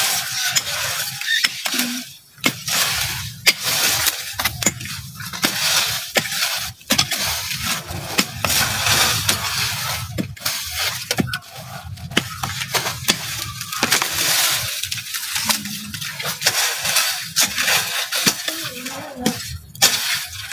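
Small hand digging tool chopping and scraping into soil at the base of a taro plant, working the corm loose: irregular sharp knocks and scrapes, one after another.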